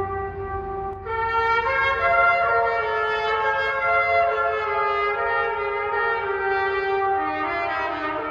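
Trumpet playing a slow tune of long, held notes that step from pitch to pitch, with a lower note near the end.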